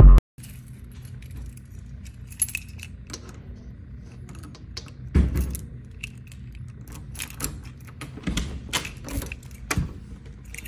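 A bunch of keys jangling and a key clicking in the lock of a door's lever handle as the door is unlocked, in a series of short, irregular clicks and jingles.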